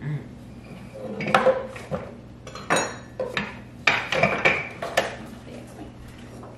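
Kitchen clatter: a handful of sharp knocks and clinks as utensils and things are set down and moved on a countertop and wooden cutting board, bunched between about one and five seconds in.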